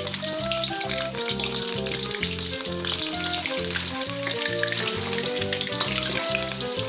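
Tahu aci frying in hot oil, a steady crackling sizzle, under background music with a melody and a regular beat.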